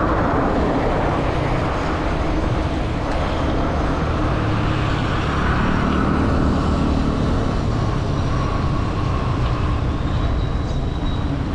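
Steady road traffic noise with a low wind rumble on the microphone, heard from a moving bicycle.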